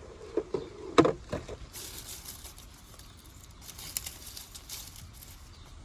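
Eggs being handled in a hen's nest: a few light clicks and knocks as they are picked up, the loudest about a second in, then rustling twice.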